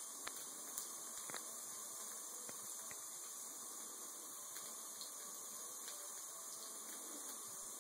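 Thin stream of water trickling from a bathtub faucet, a steady hiss, with a few light clicks.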